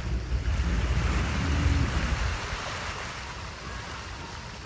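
Sea waves washing, with wind rumbling on the microphone. Both are loudest for the first two to three seconds, then ease to a softer wash.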